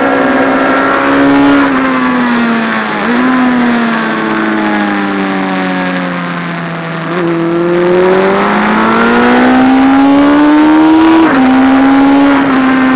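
P&M Kawasaki classic racing motorcycle's four-cylinder engine at high revs, heard from onboard. It is pulling hard with a quick upshift about three seconds in, then the revs fall slowly as it slows for a corner, with a downshift blip partway through, and climb again to another upshift near the end.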